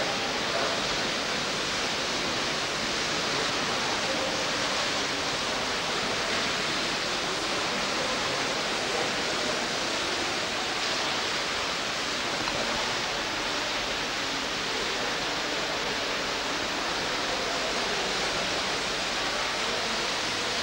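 Steady, even hiss with no distinct events, typical of an old camcorder's tape and microphone noise.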